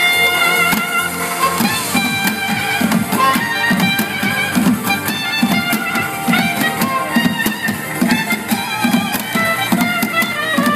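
Street band music: drummers beat sticks on plastic barrel drums and metal tins in a steady beat, with a saxophone playing the melody over it.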